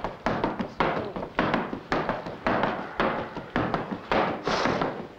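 Tap dancing on a wooden stage floor: shoes striking in a fast, uneven rhythm of sharp taps, several a second.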